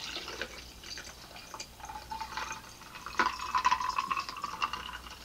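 Water pouring from a plastic water bottle into a stemless glass packed with ice cubes, trickling and splashing over the ice, with a sharp click about three seconds in.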